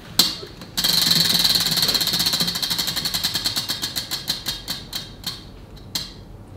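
Prize wheel spun by hand: its pointer clicking rapidly over the pegs, the clicks slowing steadily until the wheel stops about six seconds in.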